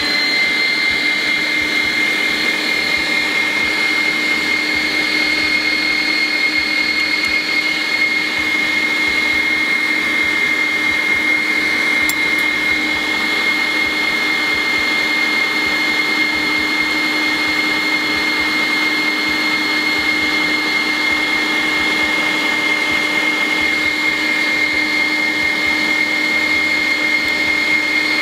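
Zigmund & Shtain ZMG-010 electric meat grinder running steadily under load, forcing minced meat through its sausage-stuffing nozzle. A very loud, even motor whine with a high steady tone.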